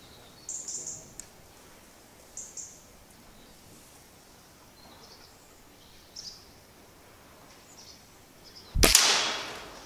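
A Walther LGU spring-powered air rifle fires once near the end, a sharp shot whose sound dies away over about a second. A few faint, brief high hisses come before it.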